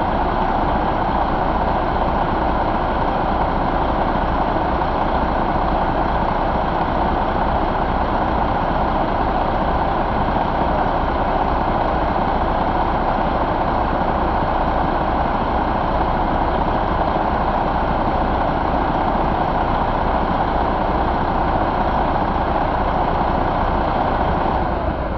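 Detroit Diesel Series 60 14.0 L inline-six diesel engine idling steadily, with an even low pulse.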